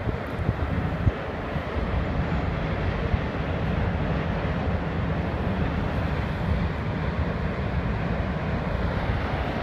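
Double-stack container freight train rolling across a stone arch viaduct: a steady low rumble of wheels and cars, with a couple of light clicks near the start.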